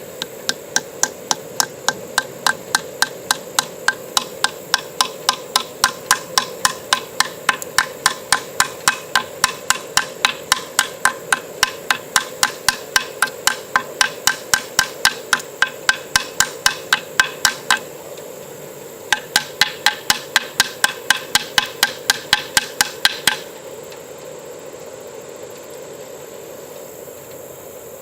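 A light 3D-printed PLA hammer tapping a roofing nail into wood in a fast, steady run of about three blows a second. The blows pause briefly, resume for a few more seconds, then stop. The hammer is so light that the nail goes in only slowly.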